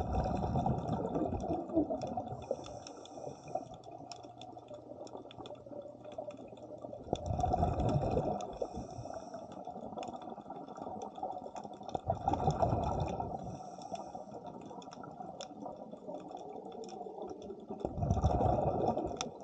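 A scuba diver breathing through a regulator underwater: bubbling rumbles of exhaled air four times, about every five to six seconds, with a thin hiss of inhaling between them.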